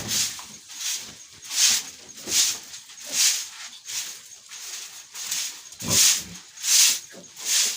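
Broom sweeping sawdust in brisk, regular strokes, a little more than one stroke a second, with a duller thump among the strokes about six seconds in.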